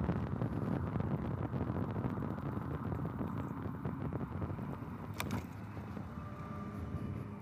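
Wind and road noise buffeting a helmet-mounted camera microphone while riding an electric scooter: a steady rumble that eases slightly, with one sharp click about five seconds in and a faint steady whine near the end.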